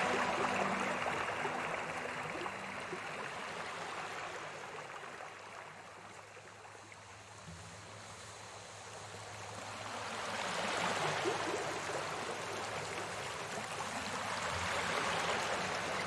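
Steady rain falling, an even hiss of water that grows quieter midway and then swells again. Background music fades out in the first second.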